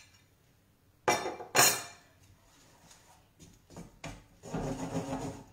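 A spoon knocks loudly twice against the dish as grated Parmesan is scraped into a pan of oat risotto, followed by a few lighter clinks. Near the end comes a longer spell of the spoon stirring and scraping in the pan as the cheese is worked into the risotto.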